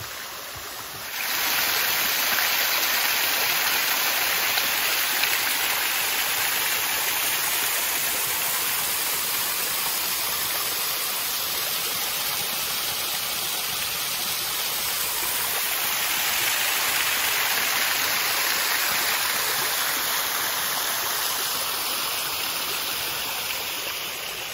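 Small waterfall splashing steadily, a constant rush of falling water that gets louder about a second in.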